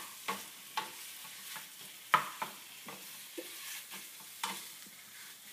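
Italian sausage and garlic frying in olive oil in a small skillet, a faint steady sizzle, while the meat is stirred and broken up in the pan. Scattered sharp clicks of the utensil against the pan, the loudest about two seconds in.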